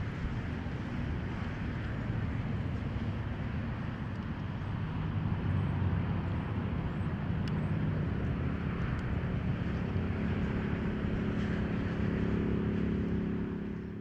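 A low engine drone over a rumbling background, with a steady pitched hum that grows stronger from about halfway through.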